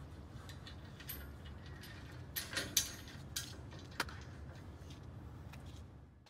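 Metal clinks and clicks of bolts, washers and nuts being handled and fitted into a steel bracket: a little cluster about two and a half seconds in and one sharp click at about four seconds, over a steady low rumble. The sound fades out at the end.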